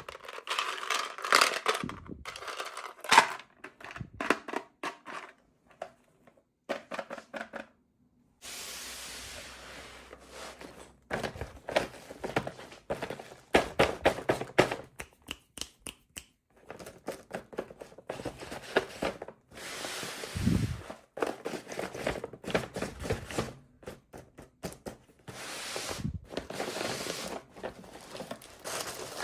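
Packaging being opened by hand: crinkling and tearing of wrapping with small clicks and taps, in irregular bursts with short pauses and a sharp click about three seconds in.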